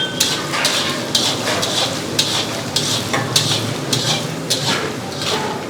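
Capsicum and freshly added grated coconut frying in oil in a kadai, sizzling steadily while being stirred, the stirring utensil scraping the pan about twice a second.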